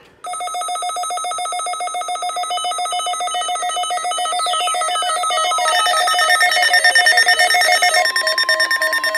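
Several weather alert radio receivers sounding their alarms together as the NOAA Weather Radio test goes out: many overlapping rapid electronic beeps and warbles at different pitches start suddenly and carry on throughout. A tone sweeps down in pitch about halfway through, and a steady tone joins near the end.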